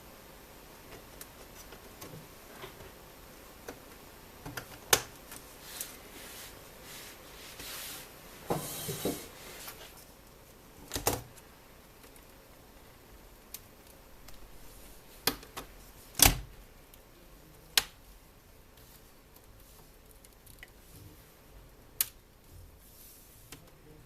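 Scattered clicks and knocks of hands handling small hard parts, with a brief rustle about nine seconds in; the loudest knock comes about sixteen seconds in.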